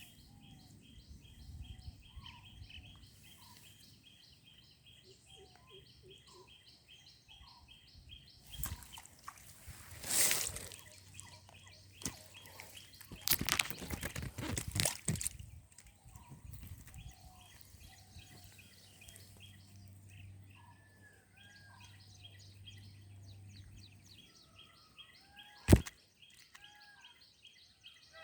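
Birds calling outdoors: short calls over a fast, evenly repeated high chirping. This is broken by two stretches of loud noise, one about a third of the way in and one around the middle, and by a single sharp, loud click near the end.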